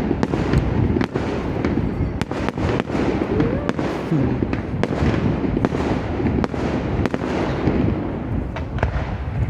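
Fireworks display: many sharp bangs and crackles going off in quick succession over a continuous dense rumble of explosions.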